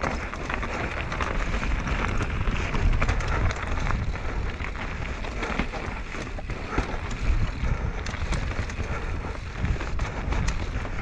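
Mountain bike descending rocky singletrack: knobby tyres rolling over loose slate and gravel, with many small clicks and rattles from stones and the bike over a steady low rumble.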